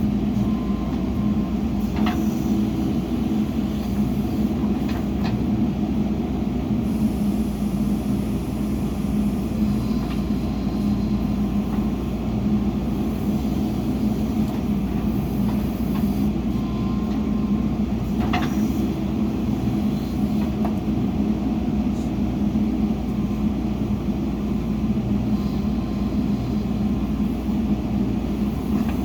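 Heavy diesel engine of earthmoving machinery running steadily under work, with a few short sharp knocks over it.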